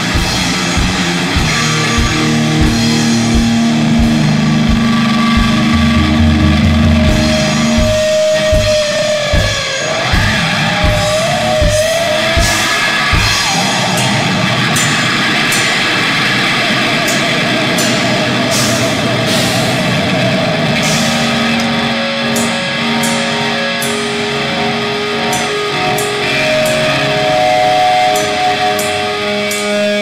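Rock band music: electric guitar with a drum kit. Held guitar notes ride over a steady low beat about twice a second; gliding guitar notes come in around eight to thirteen seconds in. The low beat then drops out, leaving sharp cymbal-like hits and sustained guitar tones.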